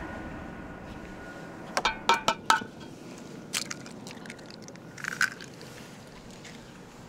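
Raw eggs being cracked by hand into an enamel basin: a quick run of about four sharp taps about two seconds in, one more tap a second later, and a short crackle near five seconds as shells break and the contents drop.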